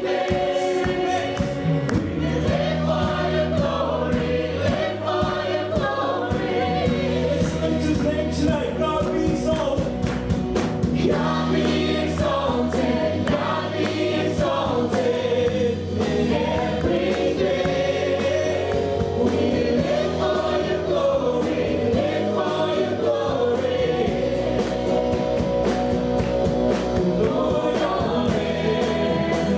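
A church worship band playing live: a man sings lead over acoustic guitar and a second guitar, with other voices singing along. The song runs on steadily, with sung lines held over sustained bass notes.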